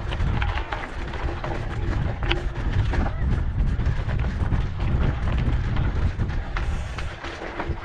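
Mountain bike riding along a rough dirt trail: a steady low rumble with many small clicks and knocks from the bike rattling over the ground.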